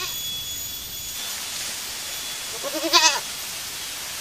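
A goat bleats once, a short quavering call about three seconds in.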